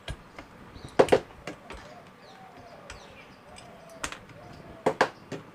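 A few sharp clicks and knocks, the loudest about a second in and more near the end, as a capacitor is desoldered and pulled from a TV circuit board with a soldering iron.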